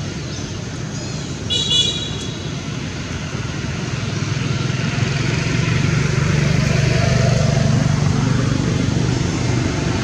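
Motor vehicle engine and traffic noise, a steady low rumble that grows louder through the second half. A brief high-pitched squeak comes about a second and a half in.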